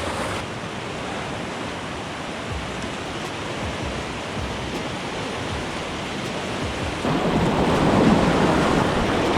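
Steady rush of fast-flowing floodwater mixed with wind on the microphone, growing louder about seven seconds in.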